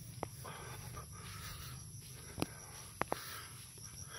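Insects chirring steadily in the grass and scrub, a faint high even drone, with a few scattered sharp clicks, the loudest about two and a half seconds in.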